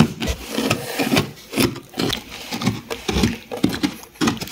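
Toy horse figures being moved quickly across sand, with irregular soft thumps and scraping.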